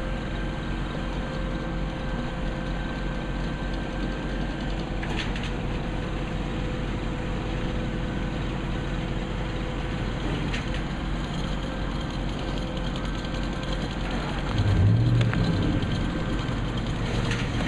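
An engine-driven machine running steadily with a constant hum, briefly louder and lower about fifteen seconds in.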